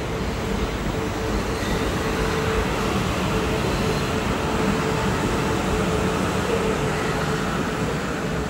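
South Western Railway Class 450 Desiro electric multiple unit running past along the platform, with steady wheel-on-rail noise and a steady whine over it.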